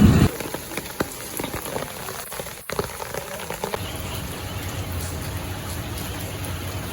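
Rain falling, a dense patter of drops on surfaces, opened by a brief loud thump.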